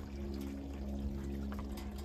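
Water mixed with Pine-Sol pouring into a sawmill's blade-lubrication tank, over a steady low hum.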